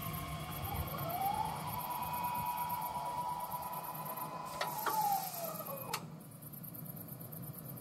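Level-crossing barrier drive raising its striped boom. A motor whine rises in pitch over the first second or so, holds steady, then falls away about five seconds in, ending with a sharp clunk around six seconds in as the arm comes upright. A faint, fast high ticking runs through the first half.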